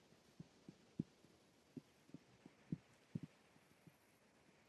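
Faint, soft hoof thuds of wild horses walking on grassy ground, irregular, about two or three a second.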